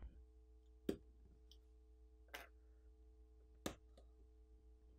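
A SIM card tray being ejected from a Unihertz Jelly Max smartphone with a metal ejector pin and slid out of the frame: three short sharp clicks over about three seconds, the first and last loudest.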